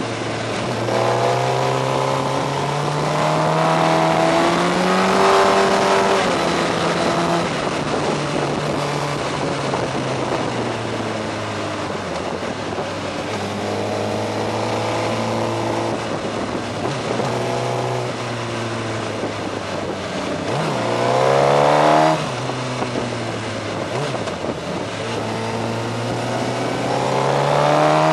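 Suzuki GSX-R 1000's inline-four engine heard on board at riding speed, with steady wind noise. Its revs climb several times as it accelerates out of bends and drop back between them. The steepest climb, about three-quarters of the way through, cuts off suddenly.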